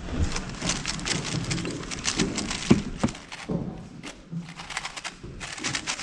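A 3x3 speedcube being turned at full speed: a fast, dense run of plastic clicks from the layers snapping round, with a short lull in the turning about four seconds in before the clicking picks up again.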